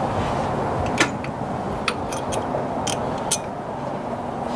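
Irregular sharp clicks and clinks of a hand wrench working the AC compressor's upper mounting bolt, over a steady low background noise. The loudest click comes about a second in.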